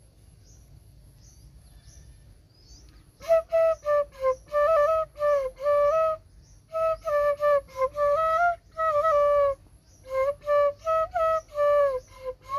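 Bansuri (bamboo transverse flute) playing a melody of short breathy notes with small slides between pitches, starting about three seconds in and going on in phrases with brief pauses.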